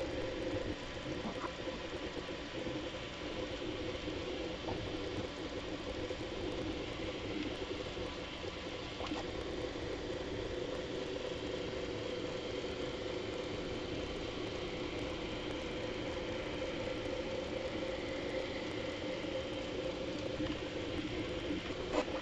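Bambu Lab A1 3D printer running, its motors and moving bed sped up tenfold into a steady whirring, rattling chatter, with a sharp click near the end.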